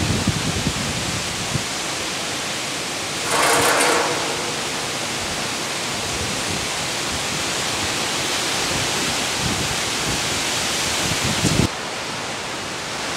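Tropical cyclone winds with rain, a steady rushing noise, with a brighter, louder surge for about a second some three seconds in. Near the end the noise cuts suddenly to a quieter, duller rush.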